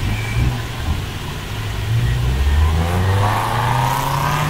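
A car engine running, then accelerating, its pitch rising over the last second and a half.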